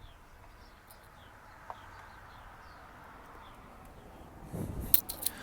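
Faint bird chirps, short falling notes repeated every half second or so, over a quiet background. Near the end come a few sharp clicks and knocks, like a tool or part being handled.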